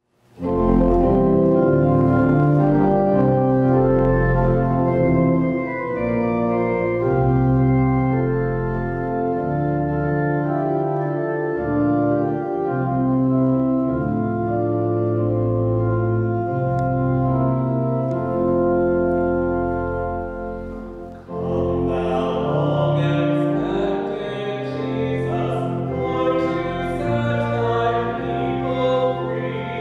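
Organ playing slow, sustained chords with a deep bass line, starting about half a second in. About 21 seconds in the music changes and a singing voice joins the organ.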